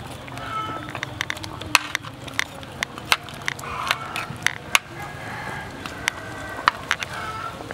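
Scattered, irregular sharp clicks and crackles, with a few short faint calls in the background.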